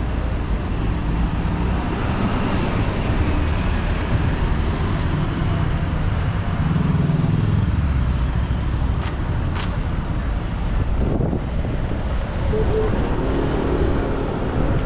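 Street traffic: cars and other vehicles running and passing, with a steady low rumble. A couple of short clicks come about two-thirds of the way through.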